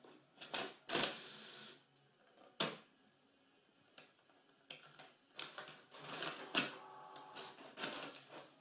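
Desktop printer at work: clicks and knocks of its mechanism, with a steady motor whir as a sheet feeds out near the end.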